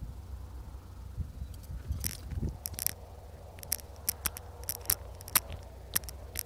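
Metal chain dog leash clinking and jangling in sharp, irregular clicks, thickest from about two seconds in, over a low steady rumble.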